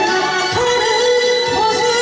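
A song performed with singing over an instrumental backing track; a long held melody note begins about half a second in and moves to a new pitch near the end.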